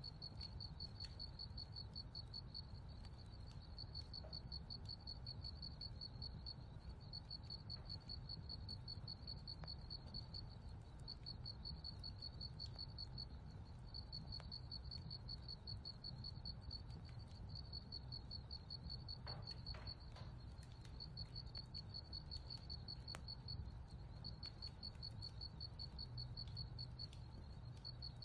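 Faint cricket chirping: a steady high-pitched run of rapid, even pulses at one pitch, broken by short pauses every few seconds, over a low steady rumble.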